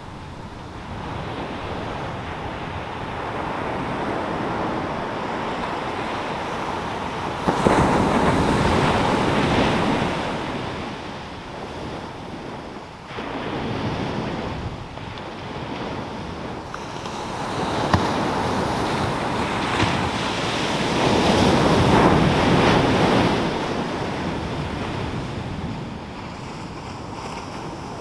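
Pacific Ocean surf breaking and washing up a sand beach. It is a continuous rushing wash that swells into a loud surge about seven seconds in and another building to a peak past twenty seconds in.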